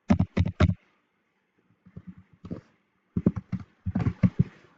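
Computer keyboard keys being typed in short groups of taps: four quick strokes at the start, a few scattered ones, then a faster run of keystrokes in the second half.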